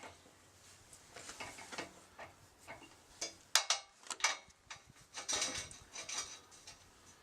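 Metal clicks, clinks and short rattles from handling a steel annular cutter and a magnetic drill's quick-release chuck. The sharpest clicks come about three and a half seconds in.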